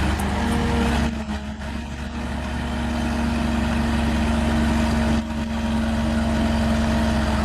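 A heavy-equipment engine running steadily with a low drone. It starts abruptly and holds an even pitch, with brief dips about a second in and again about five seconds in.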